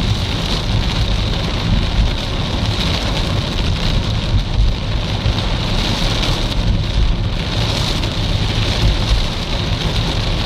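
Heavy rain falling on a moving car's roof and windshield, a steady loud hiss heard from inside the cabin over the low rumble of the car and its tyres on the wet road.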